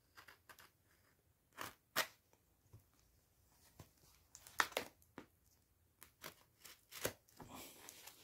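Pocket knife cutting into a cardboard mailer as the package is handled: a scatter of short, sharp scrapes and crackles, with the loudest ones about two seconds in and near the middle.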